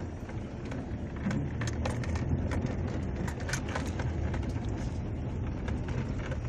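A car driving on a dirt road, heard from inside the cabin: a steady low rumble of engine and tyres, with frequent small clicks and knocks as it goes over the rough surface.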